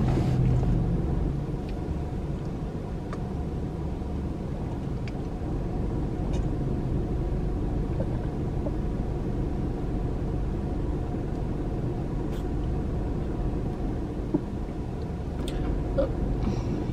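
Steady low rumble of a car's engine and cabin, heard from inside the car, with a few faint ticks.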